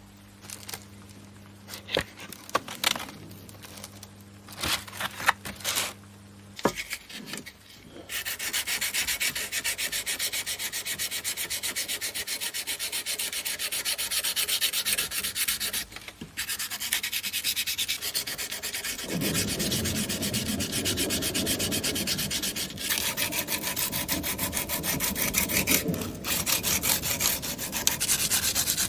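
A few scattered clicks and taps, then, from about eight seconds in, continuous sanding or abrasive rubbing on the knife, with two short breaks.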